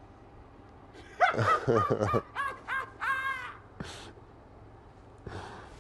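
Short wordless cries from a man sinking into deep lakebed mud: a quick run of yelps, then a longer drawn-out cry, with a single knock near the end.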